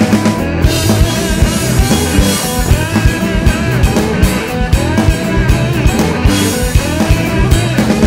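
Rock band playing: electric guitar over bass and a steady drum beat.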